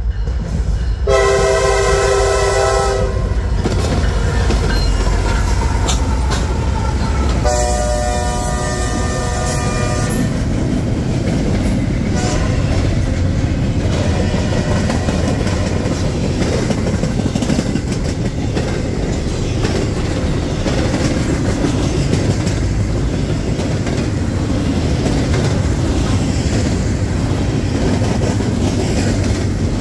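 A freight train's locomotive air horn sounds two blasts, one starting about a second in and lasting about two seconds, the second a few seconds later and a little longer, over the low rumble of the approaching diesel locomotives. Then the double-stack intermodal container cars roll past with a steady rumble and clatter of wheels on the rails.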